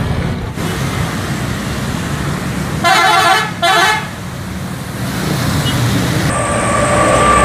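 Tour bus engine and traffic noise, with two short blasts of a multi-tone bus horn about three seconds in. Near the end a single horn note is held for over a second.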